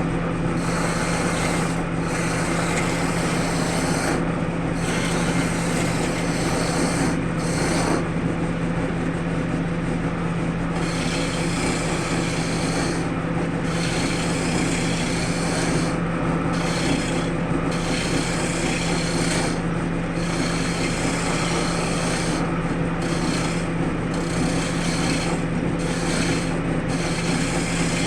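Wood lathe running with a steady motor hum while something scrapes continuously against the spinning wood.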